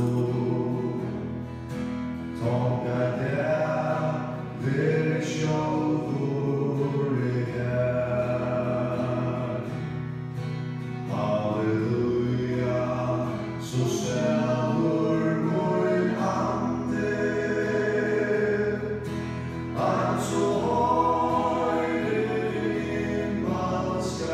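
Several voices singing a Faroese song together in phrases, accompanied by strummed acoustic guitar.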